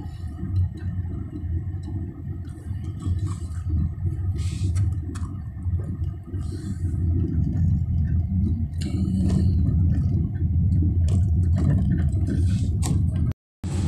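Steady low rumble of a car's engine and road noise heard from inside the cabin while driving, with scattered small knocks and clicks. The sound cuts out completely for a moment near the end.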